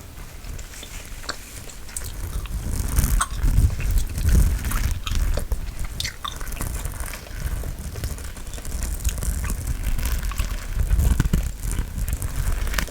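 Gum chewing close to the microphone, with short wet mouth clicks and smacks, and low rumbles from hands moving on or brushing the microphone a few seconds in and again near the end.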